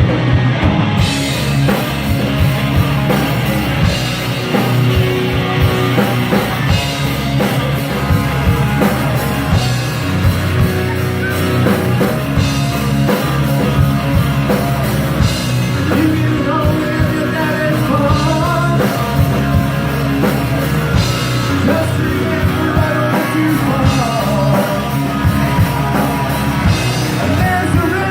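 Live rock band playing loudly: electric guitar, bass and drums, with a singing voice over them.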